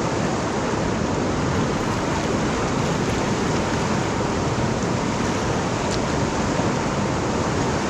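Whitewater river rapids rushing, a steady, even noise of churning water.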